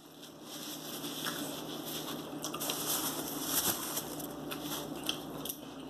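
Paper napkins being crumpled and handled: a continuous crinkling with a few sharper crackles.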